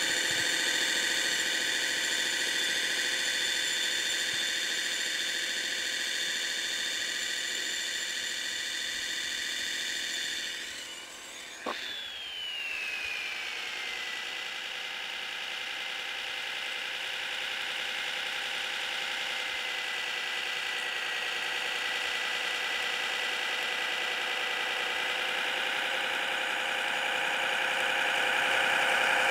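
Kyosho Blizzard DF-300 radio-controlled snowcat model running, a steady high-pitched mechanical whine from its drive. About eleven seconds in it dips with a click, then the pitch falls and settles lower.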